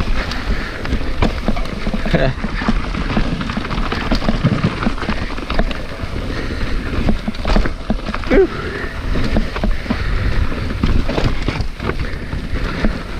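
Mountain bike riding down a rough, technical dirt trail: a steady rumble of tyres over roots and rocks, with frequent knocks and rattles from the bike as it hits bumps.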